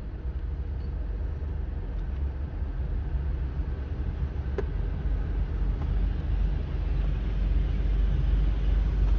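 Car cabin hum of a Ford Focus with its engine running and the air-conditioning blower on: a steady low rumble with a hiss that grows slightly louder. There is a brief click about halfway through.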